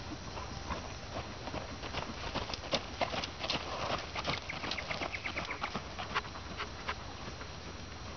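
Thoroughbred dressage horse trotting on a gravel arena: its hoofbeats crunch and knock, growing louder through the middle as the horse passes close, then easing off near the end.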